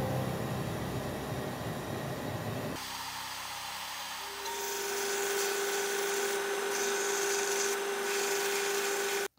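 Belt sander running with a steady motor whine while a wooden knife-handle scale is ground against the abrasive belt, a rasping hiss. The sound changes character about three seconds in and stops abruptly near the end.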